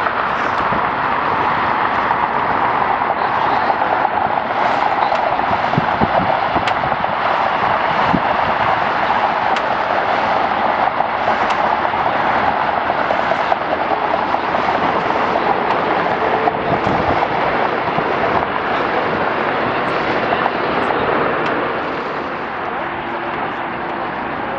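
Jet airliner engines running on the airfield: a steady, loud rush with a crackling edge, dropping a little near the end.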